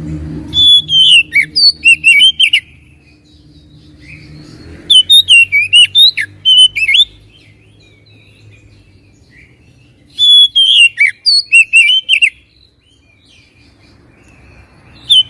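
Oriental magpie-robin (kacer) singing three loud bursts of clear whistled notes that slide up and down, each about two seconds long. The same phrase repeats every four to five seconds, and a fourth burst starts at the very end.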